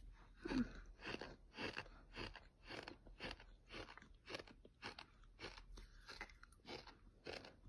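Mouthful of fine beach sand being chewed: steady gritty crunching at about two chews a second.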